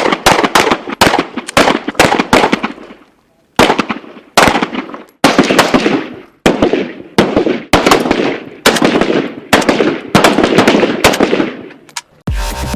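AK-47 assault rifle firing short bursts of a few rounds each, again and again, each burst trailing off in a long echo. Electronic music with a heavy bass comes in just before the end.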